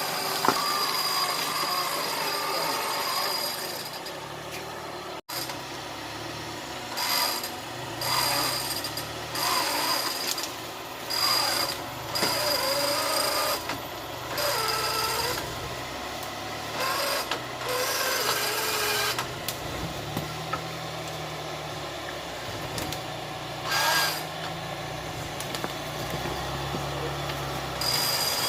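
A motor revved in short bursts again and again, its pitch rising and falling with each burst, over a steady thin high whine that cuts in and out.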